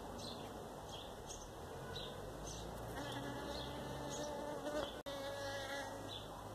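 Honey bee buzzing as it forages in a flower: a steady hum with a clear pitch that grows stronger in the middle few seconds.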